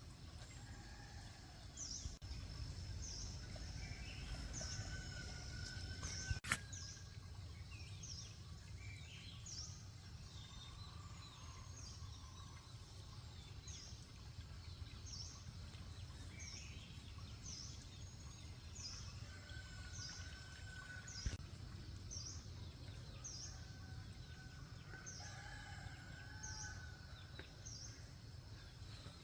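Faint farmyard ambience. A small bird gives a short, high, falling chirp about once every second or so, and chickens call now and then with a few longer drawn-out cries, over a low steady rumble. Two sharp clicks stand out, one about six seconds in and one about twenty-one seconds in.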